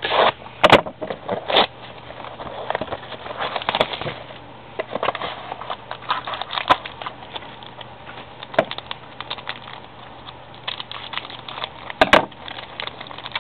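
Crinkling and rustling as a trading card pack is opened and its cards handled, with irregular crackles and sharp clicks; the loudest clicks come about a second in and again near the end.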